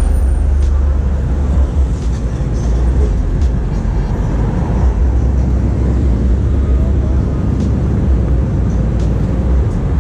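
Street traffic with cars driving past over a heavy, steady low rumble.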